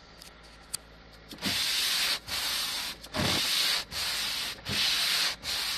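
Windshield wiper blades scraping across a frost-covered windshield, one sweep after another about every three-quarters of a second, starting about a second and a half in.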